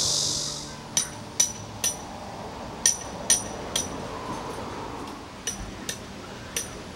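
Tent stakes being hammered into gravel: sharp, ringing metal strikes in quick groups of two or three, about half a second apart, with short pauses between the groups.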